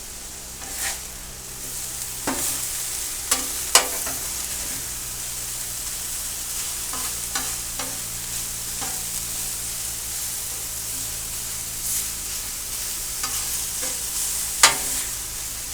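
Chicken pieces sizzling steadily on a hot Blackstone flat-top griddle, with sharp clicks and scrapes of a metal spatula against the steel surface every few seconds, the loudest near the end.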